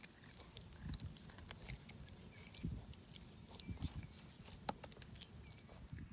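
Footsteps on soft ground, soft uneven thuds about one to two a second with small clicks of handling noise, over a faint steady high hiss.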